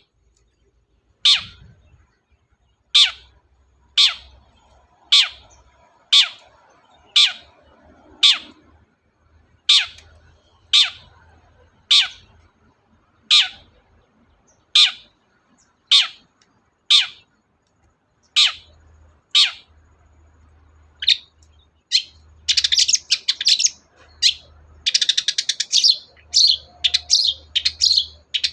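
Long-tailed shrike (cendet) singing: a sharp falling note repeated about once a second, breaking into a fast, dense, scratchy chatter about three-quarters of the way through.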